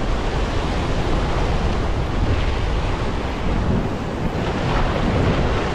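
Ocean swell breaking and washing over a rock ledge, a steady surf wash, with wind buffeting the microphone.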